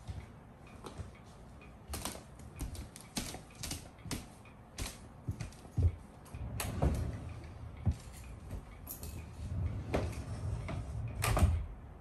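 Irregular clicks, taps and knocks of a person moving about off-screen and handling things, with dull low thuds in the second half. The loudest sharp knock comes near the end.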